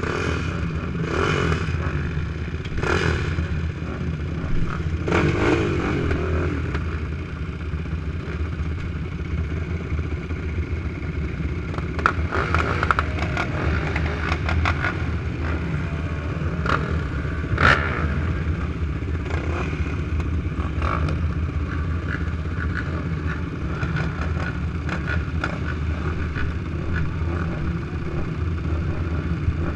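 Several 450-class production race quads idling together at the starting gate, a steady low engine rumble with scattered clicks and knocks.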